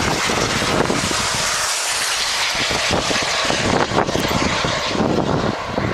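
Model aircraft engine noise at an RC airfield: a steady, loud rushing drone with no clear pitch.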